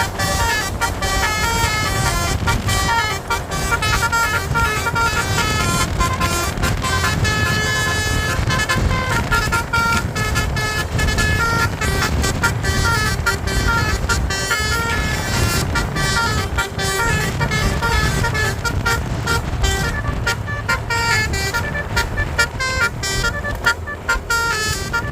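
A bus's basuri, the multi-note musical air horn known as telolet, playing a tune of quickly stepping notes without pause. A vehicle engine runs underneath.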